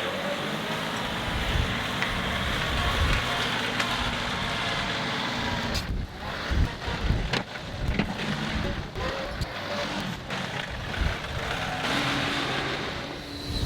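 John Deere 325G compact track loader's diesel engine running under working load, with irregular low knocks from the machine at work. Its engine tone steadies and rises a little near the end.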